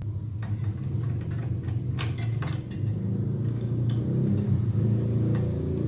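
A steady low engine rumble, as from a vehicle running nearby, growing louder about four seconds in. A few light clicks about two seconds in.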